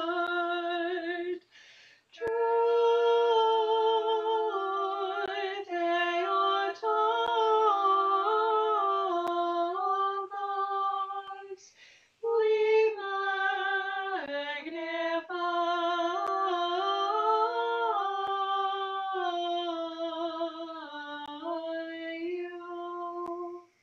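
Two women singing an Orthodox liturgical response a cappella in harmony: two long sung phrases with a short breath between them.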